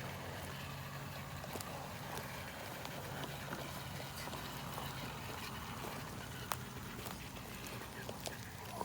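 Steady rain, with scattered light clicks and knocks over a faint low hum that fades about five seconds in.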